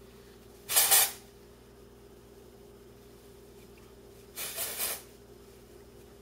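Batiste dry shampoo aerosol can spraying onto hair in two short hisses: a loud burst about a second in and a softer, slightly longer one about four and a half seconds in.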